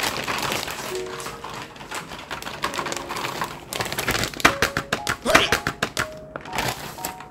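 Plastic courier mailer bag crinkling and rustling noisily as it is handled and pulled at, with many quick crackles, over light background music.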